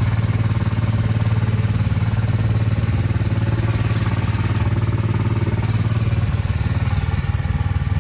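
Small gasoline engine of an amusement-park antique car ride running steadily under throttle, its firing pulses fast and even.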